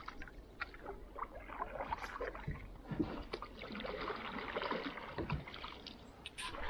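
Canoe paddle strokes: the blade dipping and pulling through the water with irregular splashes and drips, and water sloshing along the canoe's hull.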